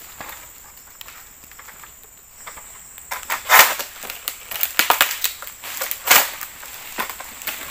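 A long-pole harvesting sickle (egrek) working at an oil palm's crown: short crunching, rustling strokes as the blade pulls and cuts at the fronds. The strokes start about three seconds in and come in a quick run, the loudest about halfway through.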